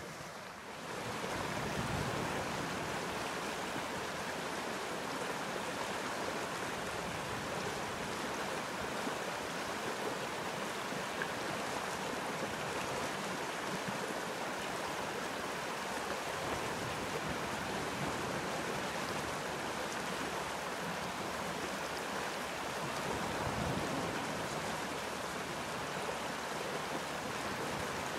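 Shallow rocky stream rushing in rapids, a steady rush of water that swells up about a second in.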